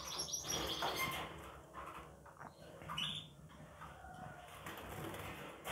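Faint fluttering of a young canary's wings against a wire cage, in short irregular spells of rustling.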